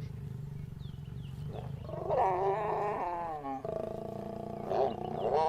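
Lions vocalizing during mating: a wavering pitched call about two seconds in that lasts over a second, then a second one starting near the end, over a low steady background.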